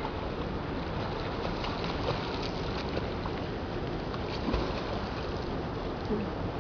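Faint splashing of a man swimming in a pool, heard over a steady rushing background noise, with a couple of soft knocks about four and a half seconds in.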